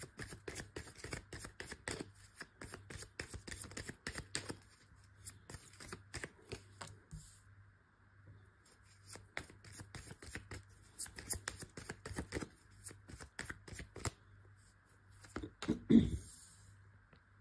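Tarot deck being shuffled by hand, fast runs of card clicks in two spells with a pause between. Near the end a card is laid down on the wooden tabletop with a single louder knock.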